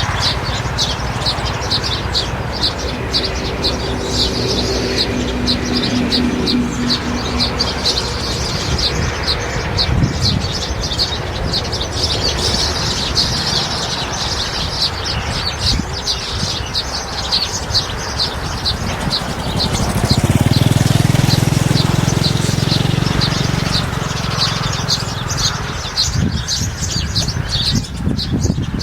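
Birds chirping continuously, many short, quick, high notes overlapping. A low rumble swells about twenty seconds in and fades a few seconds later.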